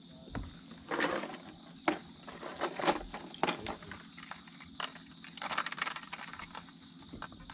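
Light metallic clicks and clinks from fishing gear being handled, with a few short rustling bursts, over a faint steady hum.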